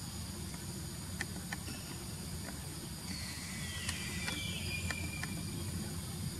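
Forest ambience: insects buzzing steadily on high pitches over a low rumble, with a few scattered clicks and a whistled call that falls in pitch about three seconds in.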